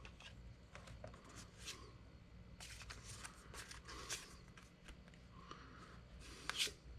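Postcards being handled and slid over one another: several faint, short swishes of card.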